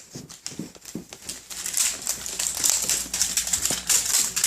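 Irregular rustling with light clicking and tapping.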